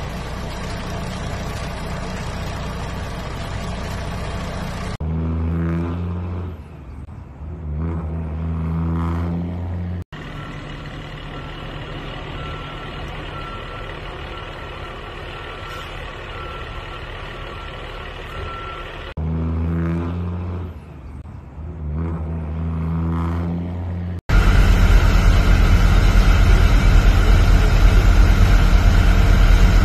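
Heavy-truck engine and yard noise in several short clips. In the middle a reversing beeper sounds a run of evenly spaced beeps, and near the end a louder steady low engine rumble takes over.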